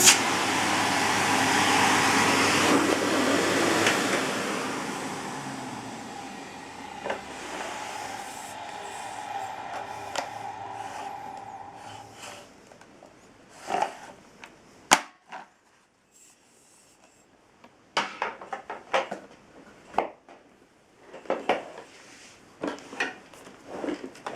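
Volta U240 vacuum cleaner's motor running, then switched off and winding down, fading over several seconds. After that come scattered sharp clicks and knocks.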